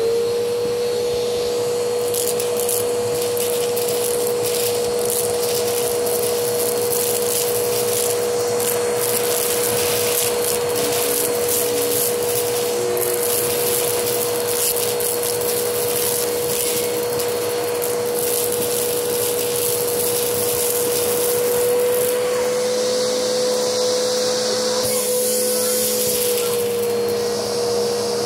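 Vacuum cleaner running with a steady motor whine, its bare wand sucking dry egg noodles up off carpet. Noodles crackle and rattle as they are pulled into the tube.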